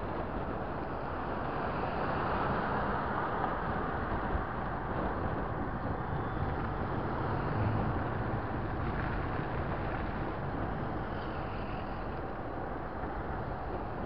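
Steady road and wind noise of travel along a paved street, a continuous rumble with wind buffeting the microphone.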